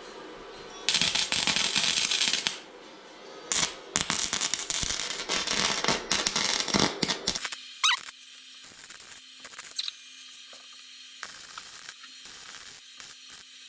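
Arc welding on metal: two bursts of crackling arc, the first about a second and a half long, the second nearly four seconds, as a cut foot piece is welded onto the frame. After that comes a quieter stretch with a faint steady low hum and scattered clicks.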